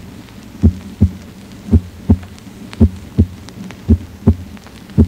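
Normal heart sounds at the cardiac apex, reproduced by a heart sound simulator: a steady lub-dub rhythm of about five beats, each beat a pair of short, low thuds. The first heart sound (S1) of each pair is lower-pitched and a little louder than the second (S2), as is usual at the apex.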